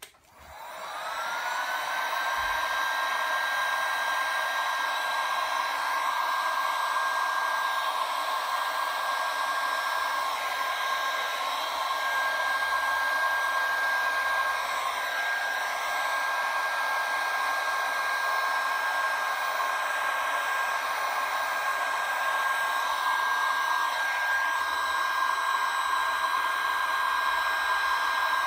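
Electric heat gun switched on, its whine rising in pitch for a second or two as the fan comes up to speed, then running steadily, blowing hot air over wet epoxy resin.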